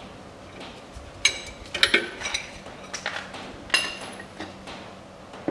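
Steel wrench clinking against the front strut-to-steering-knuckle bolts as they are tightened and the wrench comes off: about half a dozen sharp metallic clinks, each with a brief ring.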